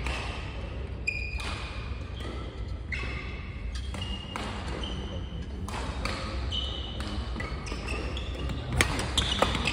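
Badminton doubles play in a large, echoing sports hall: rackets hitting the shuttlecock with sharp cracks, and court shoes squeaking briefly on the wooden floor, with a quick run of loud hits near the end.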